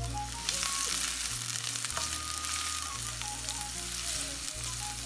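Chopped onions sizzling in hot oil in a stainless steel kadai while being stirred with a wooden spatula, a steady frying hiss, with faint background music underneath.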